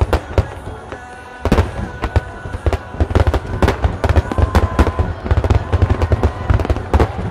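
A fireworks display firing rapid volleys of bangs and crackles, dense and near-continuous after a brief lull about a second and a half in, with music playing underneath.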